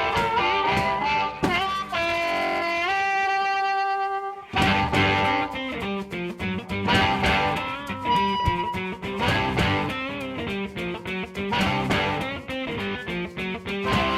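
Background music led by electric guitar with bass and a steady beat; about three seconds in, a held guitar chord rings out alone before the full band comes back in.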